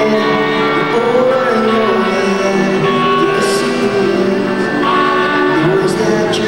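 Live rock band playing loudly: electric guitars, bass and drums, with cymbal crashes about halfway through and near the end.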